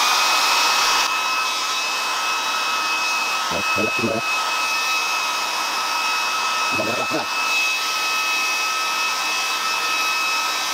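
Philips handheld hair dryer running steadily: a rush of air with a high, even motor whine.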